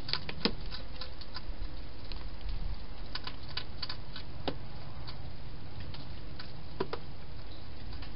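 Wild hedgehog feeding at a bowl inside a plastic feeding box: irregular small clicks and crackles, with a few sharper clicks, over a steady low background noise.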